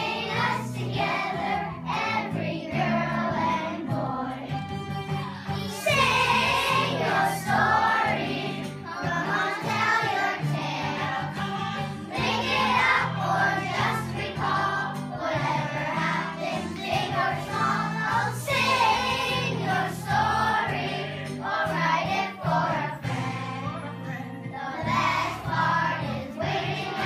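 A song: voices singing over a band with a steady, stepping bass line.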